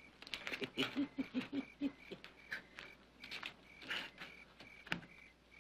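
Faint clicks and small rattles of a handheld music box being fiddled with and turned over, its lid and mechanism handled but not playing. A short high chirp repeats over and over in the background.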